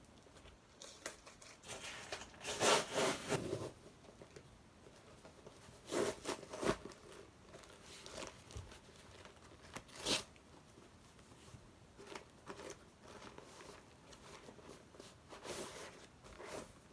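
Packaging being torn open and crinkled by hand in several separate bursts, the loudest about two to three seconds in, at six seconds and at ten seconds, with a last one near the end.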